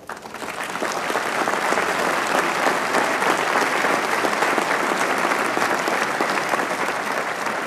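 Large audience applauding: dense clapping that swells in over the first second, holds steady, and begins to die away near the end.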